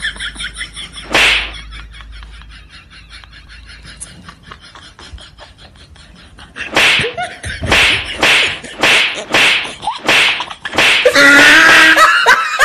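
A single loud slap-like smack about a second in, then a run of loud smacks about two a second through the second half, ending in warbling sounds that glide up and down.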